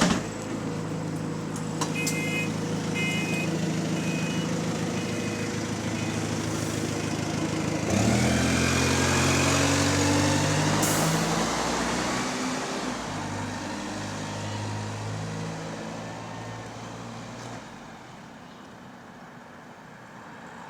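Diesel bus engine running, with a short run of beeps a couple of seconds in. About eight seconds in the engine gets louder and its pitch climbs in steps as the bus pulls away, with a brief hiss partway through, then the sound fades as the bus moves off. This is the engine and exhaust noise in which the uploader points to a small exhaust leak.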